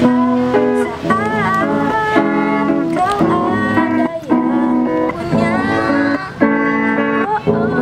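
Solo electric guitar playing an instrumental passage: rhythmic chords with bent, wavering lead notes over them.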